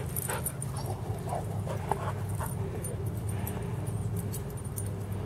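Dogs panting and moving about close by, with small faint sounds scattered throughout and a steady low hum underneath; no barking.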